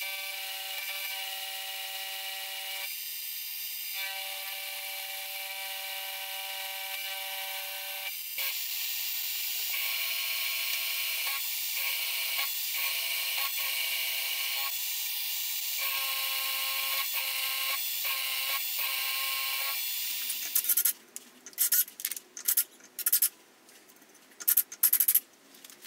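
Sieg X2.7L mini mill spindle running with a steady whine while first a high-speed-steel countersink bit and then an end mill cut a V groove and slot in 4140 steel, with brief pauses between passes. In the last few seconds the mill stops, and a series of short, sharp rasping strokes follows as the part is deburred by hand.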